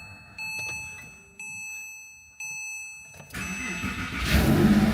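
A car's dashboard warning chime dings about once a second, then the starter cranks and the Porsche 997 Carrera's 3.6-litre flat-six fires up a little after four seconds in and settles into a cold idle, on its first start after an oil change.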